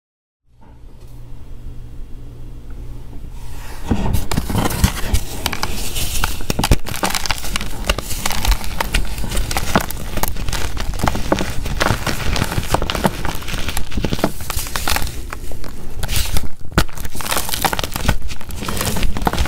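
Hand squeezing and crumbling hard blocks of dyed Z Athletic gym chalk coated in holi powder, giving dense crunching and crackling. The sound is faint at first and gets loud about four seconds in.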